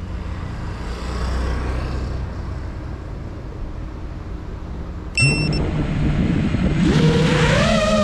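Low steady rumble of outdoor ambience, then a little past halfway the FPV quadcopter's electric motors start abruptly with a brief high beep. They spool up into a rising, multi-toned whine as the drone lifts off.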